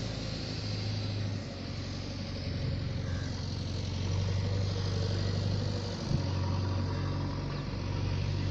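Small electric RC plane's motor and propeller droning steadily in flight, its pitch and level shifting a couple of times.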